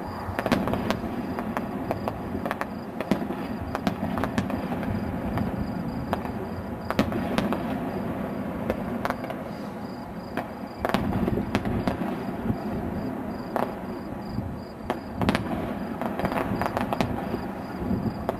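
Fireworks display: aerial shells bursting one after another, a steady low din broken by many sharp bangs and crackles at irregular intervals.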